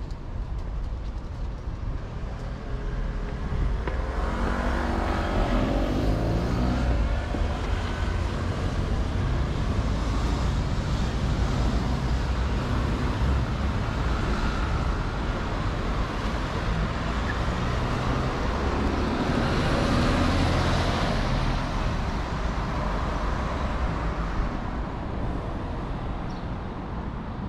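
City road traffic with a steady low rumble. Cars pass close by, louder about four seconds in and again about twenty seconds in.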